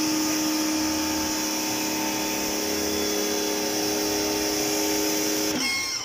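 An electric pressure washer runs with a steady motor hum under the hiss of its water spray as it soaks a motorcycle. Near the end the motor's pitch slides down briefly.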